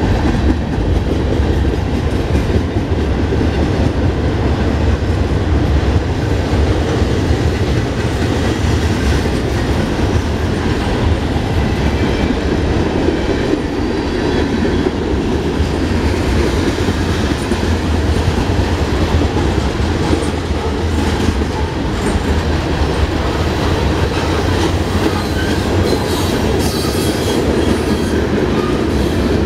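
Cars of a Norfolk Southern mixed freight train rolling past: a steady, loud rumble of steel wheels on rail with clicking over the rail joints.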